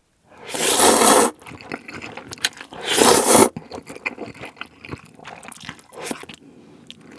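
Spicy instant ramen noodles slurped up from chopsticks twice, two loud slurps a couple of seconds apart, then chewed with small wet clicks and smacks.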